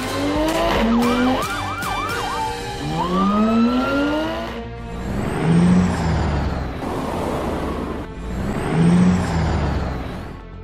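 Car engine sound effects revving up in repeated rising sweeps, with a police siren wailing briefly about a second in. From about five seconds a heavier vehicle sound swells and fades twice, low and rushing.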